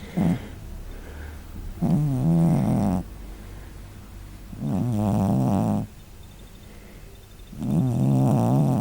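Small angora cat snoring: a pitched snore about a second long, three times, roughly every three seconds, with quieter breathing between.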